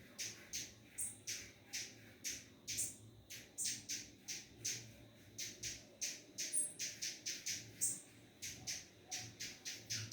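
Birds giving a rapid series of short, harsh squawking calls, about three or four a second with brief pauses, and a few thin high chirps mixed in.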